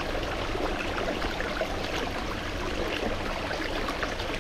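Water in a small ditch-like stream running and trickling steadily.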